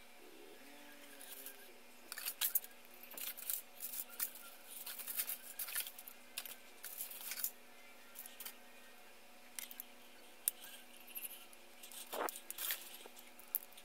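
Plastic model-kit runners handled and shuffled on a tile floor: irregular light clicks and clattering of plastic on plastic and tile, in two spells with a short lull in the middle.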